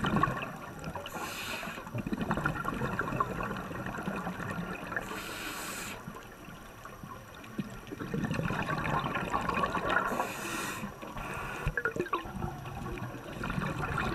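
Scuba breathing heard underwater: a hiss comes three times, about every four to five seconds, and between them exhaled air bubbles and gurgles out of a regulator.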